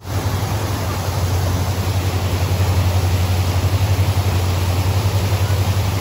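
Steady roar of a large waterfall, a dense rushing noise, with a strong low rumble underneath.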